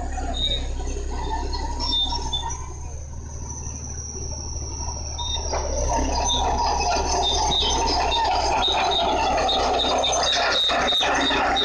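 Bulldozer's heavy engine running steadily under load, with repeated short high squeaks like crawler track squeal; it grows louder about six seconds in.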